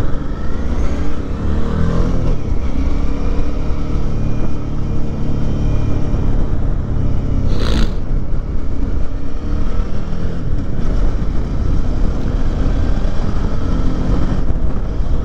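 Motorcycle engine running under way with rushing wind on the camera microphone. The engine note slides down and up over the first few seconds as the bike slows and speeds up again. There is a short hiss just before eight seconds in.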